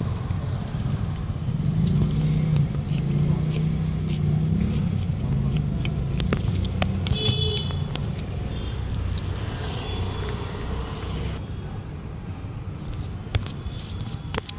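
Steady low rumble of road traffic, heaviest in the first two-thirds and easing after about eleven seconds, with scattered sharp clicks and knocks over it.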